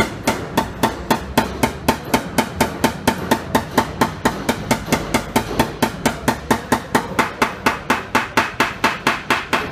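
Rapid, evenly spaced light taps of a metal paintless-dent-repair tool on a car's steel fender, about four a second, each with a short metallic ring: the finishing stage of a dent repair, knocking down the small high spots so the panel is left flat for paint.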